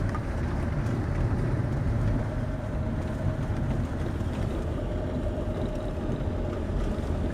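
Steady road and engine rumble inside a 2008 Fiat Scudo van as it drives, with a faint steady whine. No distinct knocks are heard from the steering shaft.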